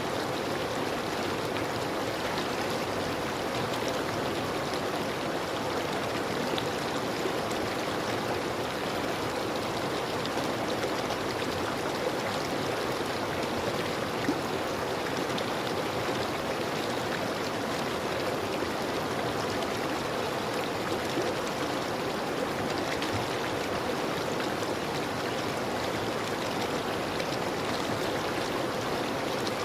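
River water flowing steadily over rocks, a continuous rushing and gurgling with no change in level.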